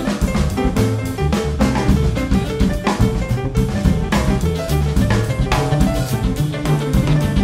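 Instrumental jazz from a quartet of alto saxophone, piano, bass and drums, with the drum kit prominent. Dense cymbal and drum strokes play over a moving bass line.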